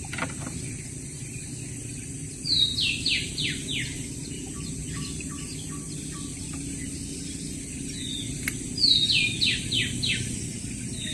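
A bird singing phrases of several clear whistled notes, each sliding quickly downward, one phrase about two and a half seconds in and another near the end, over a steady low hum. A single sharp click comes just before the second phrase.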